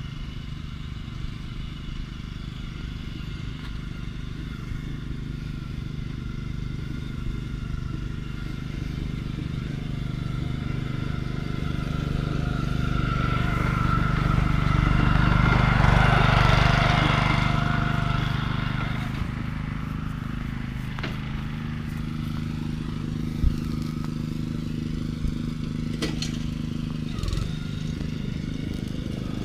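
An engine hums steadily throughout, and a passing vehicle swells to its loudest about halfway through, then fades. A few sharp clicks near the end.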